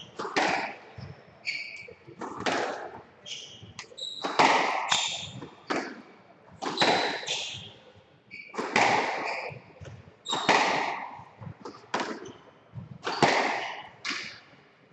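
Squash rally: the ball cracking off racquets and the walls about once a second, each hit ringing briefly in the enclosed court, with short squeaks of court shoes on the wooden floor between the hits.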